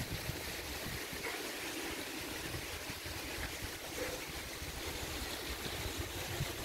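Steady hiss of running water, with a faint uneven low rumble beneath.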